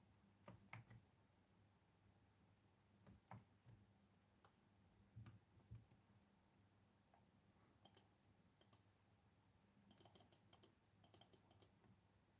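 Faint, scattered clicks of someone working a laptop computer, with a quick run of clicks near the end.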